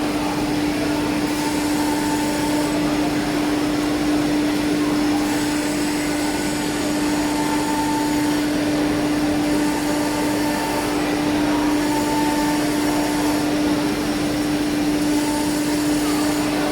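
Automatic four-head CNC woodworking machine running, its motors giving one steady hum over a constant rushing noise, with faint higher tones coming and going.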